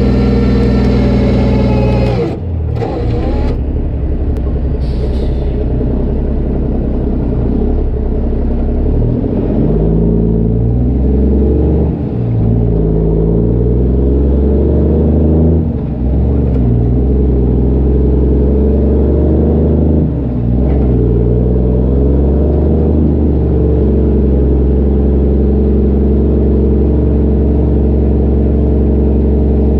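Straight-piped Cummins diesel of a Kenworth C500 winch tractor running loud as the truck pulls its load. The engine note shifts in pitch and dips briefly about four times, as at gear changes.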